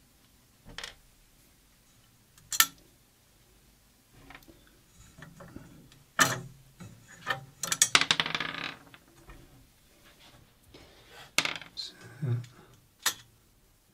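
Light metallic clicks and clinks of small hardware, shims and nuts, being handled, with a quick rattling clatter about eight seconds in.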